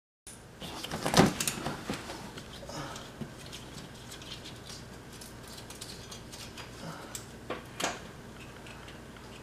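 Metal clicks and knocks from hand tools and handling under a truck's front wheel well. A sharp knock comes about a second in with a few more just after, then faint ticking, then another knock near the end.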